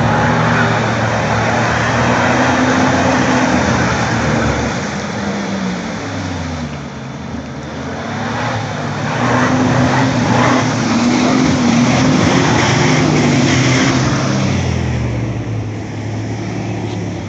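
Jeep Wrangler TJ's engine running hard off-road: it revs, drops back about six seconds in, revs up again, and eases off near the end.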